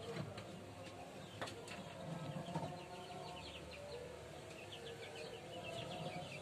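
Background birds chirping: runs of short, high chirps, heaviest about two seconds in and again about five seconds in, with some lower calls between.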